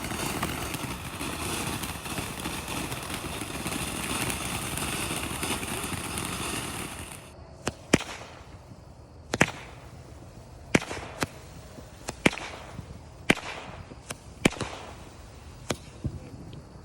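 Consumer fireworks going off: a dense hissing, crackling spray that stops suddenly about seven seconds in, then about ten sharp bangs at irregular intervals through the rest.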